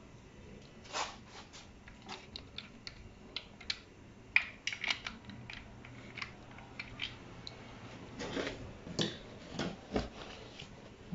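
Irregular metallic clicks, clinks and taps of a timing chain, cam sprocket and socket wrench being handled while the sprocket is fitted to a Dodge Dakota 3.7 V6. A quick cluster of clinks comes about four to five seconds in, and a few duller knocks near the end.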